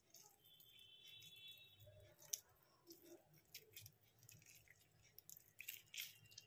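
Near silence: room tone with a few faint clicks and a faint high tone in the first couple of seconds.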